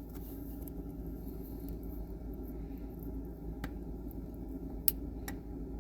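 Three faint, sharp plastic clicks in the second half, the middle one the loudest, as the turn signal switch and its wiring connector are handled and unplugged at the steering column, over a steady low hum.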